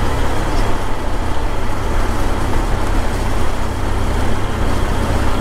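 Wind buffeting the microphone over the steady running of a motorcycle riding along a road, a loud, unsteady low rumble with road and traffic hiss above it.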